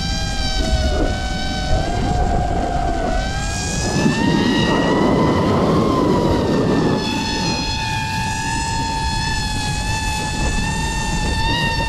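DJI FPV drone's motors and propellers whining as heard from the GoPro mounted on the drone. The pitch wavers, rises about three seconds in and then holds level, and a rush of wind builds up through the middle.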